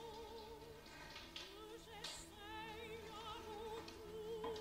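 Slow, sad background music: a voice sung in operatic style holding long notes with a wide vibrato over soft low sustained accompaniment.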